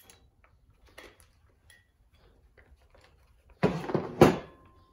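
Small metal suspension hardware being handled on a table: light clicks and clinks, then about three and a half seconds in a louder clatter of parts and packaging with one sharp metal clink.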